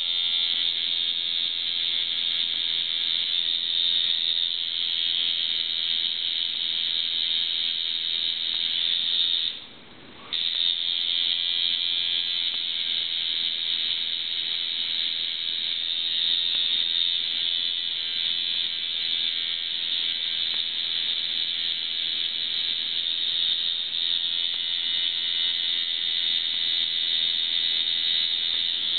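Tattoo machine running with a steady electric buzz. It cuts out for under a second about ten seconds in, then starts again.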